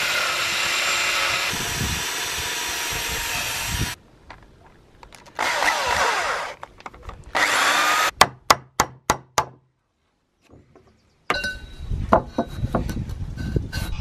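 Corded drill with a hole saw cutting into rough-sawn timber: one long run, then two shorter bursts as the drill is stopped and started. Then about six sharp knocks in quick succession, a short pause, and irregular knocking and clatter near the end.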